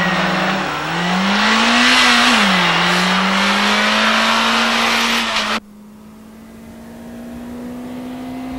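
Nissan Pulsar GTI-R's turbocharged SR20DET four-cylinder accelerating at full throttle. Its note climbs and drops back with gear changes about a second and two and a half seconds in. About five and a half seconds in the sound becomes abruptly much quieter, the engine still pulling and slowly rising in pitch.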